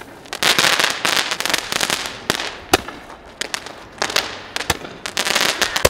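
Fireworks being set off: two long bursts of hissing and crackling, with sharp pops between them and one louder bang about halfway through.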